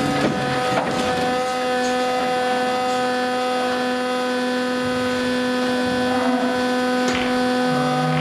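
Steady mechanical hum of several even tones from the livestock truck, whose electric ventilation fans are running, with a few brief knocks. A lower tone joins the hum about a second and a half in.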